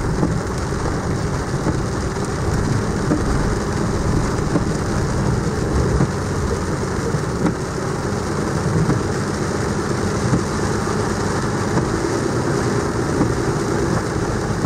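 Ram pickup heard from inside the cab while driving on a wet dirt road in heavy rain: the engine and road noise run steadily, mixed with rain on the truck, with a few small knocks from the rough road.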